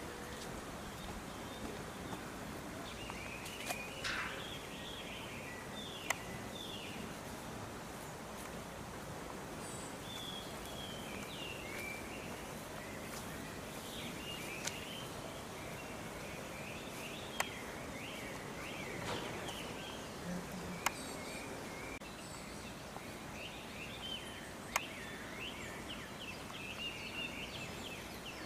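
Steady outdoor background noise with scattered small bird chirps and a few sharp clicks or knocks.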